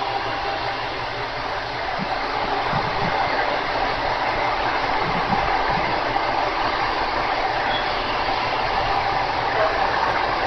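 JR Shikoku 2000 series diesel express train's engines running loudly as the train pulls away from the platform. The noise grows louder about two seconds in and then stays steady.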